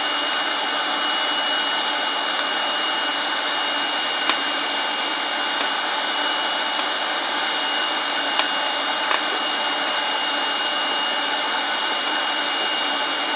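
Steady rush of an air pump blowing into a wood-fired forge, with a thin steady whine over it. The burning logs give a few sharp pops.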